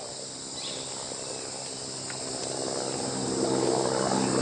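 Helicopter passing overhead: a steady engine and rotor hum that grows louder through the second half as it approaches.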